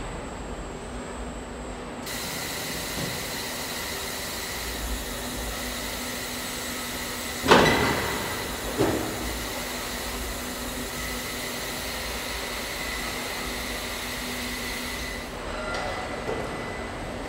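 Car-body conveyor running with a steady mechanical hum as it carries a bare steel car body through a robot welding cell. The hum starts about two seconds in and stops near the end. Halfway through there is a loud metallic clunk, then a smaller one just over a second later.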